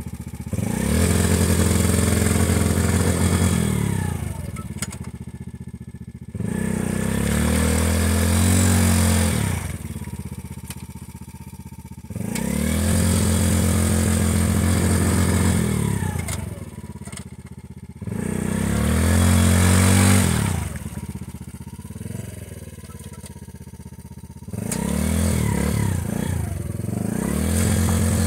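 Yamaha Grizzly 90 youth ATV engine revved in five bursts of a few seconds each, falling back to idle between them, as the quad sits bogged down in deep mud.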